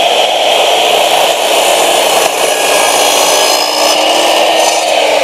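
A TNT TC-1040L 10-inch miter saw is running steadily, its spinning blade cutting down through a wooden board.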